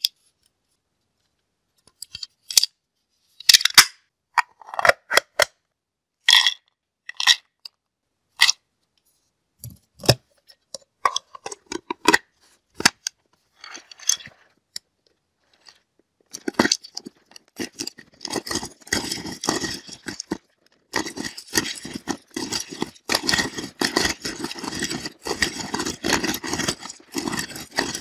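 Manual nut grinder being handled and then worked: separate clicks and knocks over the first half, then from a little past halfway a continuous crunching crackle as nuts are ground between its blades.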